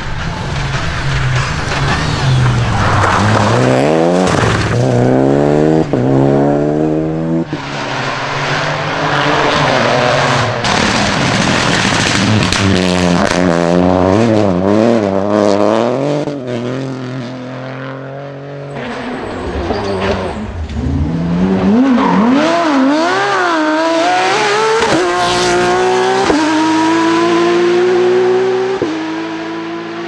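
Several rally cars in turn, driven flat out on a special stage: engines revving hard and dropping back again and again through gear changes and lifts, with tyres scrabbling on a loose, dusty surface. Near the end one car pulls away with its engine note climbing steadily.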